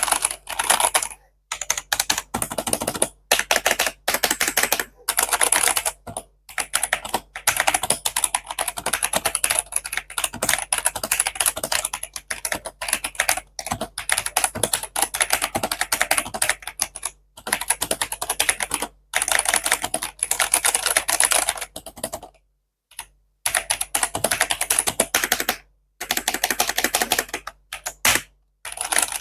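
Fast typing on a VenomRX Bionic 75% mechanical keyboard with brown tactile switches: quick runs of key clacks broken by short pauses.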